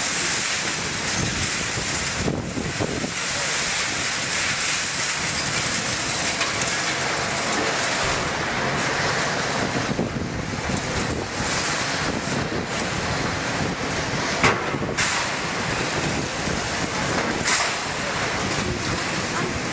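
Heavy hydraulic excavator's diesel engine and hydraulics running as its sorting grab dumps scrap iron into a steel container, with continuous metal scraping and clattering. Two sharper metal knocks stand out in the second half.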